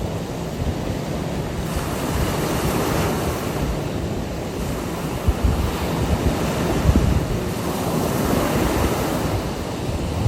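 Ocean waves breaking and washing on a beach: a continuous surf hiss that swells and eases every few seconds. Wind buffets the microphone with low rumbles, strongest in the middle.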